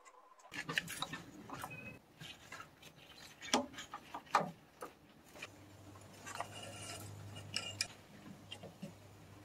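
Scattered metallic clicks, clinks and knocks from gloved hands working loose the battery hold-down and strut brace in a car's engine bay. The sharpest come about a second in and around three and a half and four and a half seconds in.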